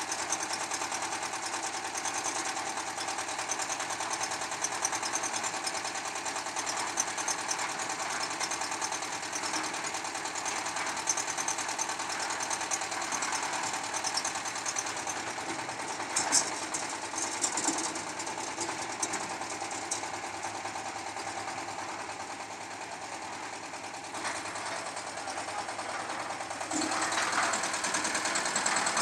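Portable concrete mixer's stationary diesel engine running steadily with a fast, even clatter as it drives the drum. It gets louder near the end.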